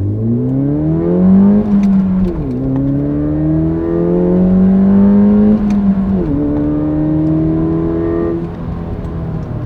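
Ford Fiesta ST's 1.6 EcoBoost turbo four-cylinder engine accelerating hard through the gears: the engine note climbs, drops at an upshift about two and a half seconds in and again about six seconds in, climbing after each, then the driver eases off near the end.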